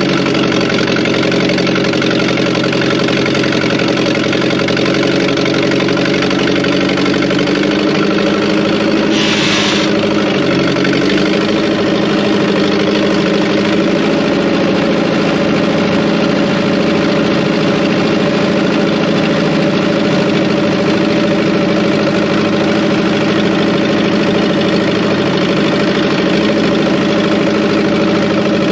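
Fordson Power Major crane's engine running steadily at idle, its pitch wavering slightly now and then, with a brief hiss about nine seconds in.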